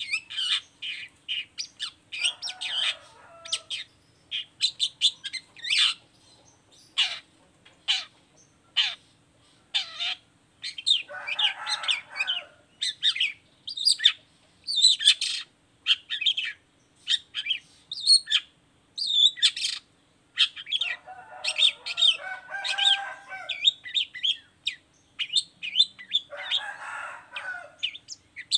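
Long-tailed shrike singing: a fast run of short, sharp, high chirps and trills, broken four times by a harsher, rasping chatter lasting a second or two.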